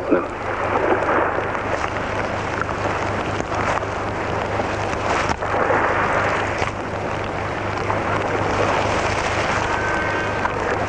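A campfire burning: a continuous rushing of flames that swells and eases, with scattered crackles, over a steady low hum.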